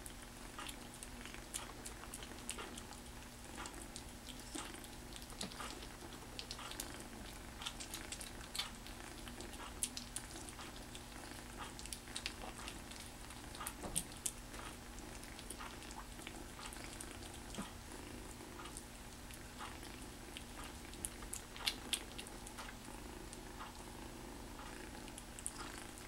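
Kitten licking and smacking soft wet food off a plastic spoon: faint, irregular little wet clicks of its tongue and mouth.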